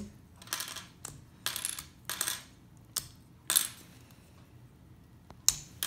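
Small plastic LEGO pieces clicking and clacking in the hands and on a wooden floor as a little spinner is pulled apart and its parts set down: a string of short, sharp, irregular clacks.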